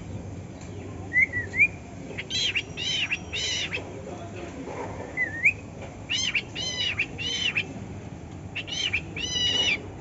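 Cockatiel calling: three bursts of two or three short, arched, squawky calls, with a brief wavy whistled note in the gaps between them.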